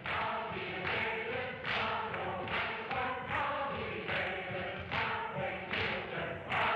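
Background music: a choir singing, with a regular thump a little more than once a second.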